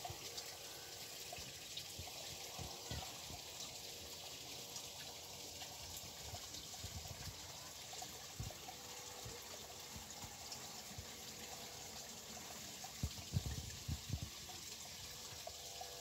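Shallow muddy stream trickling through weeds, a faint steady water sound. A few low bumps come about thirteen seconds in.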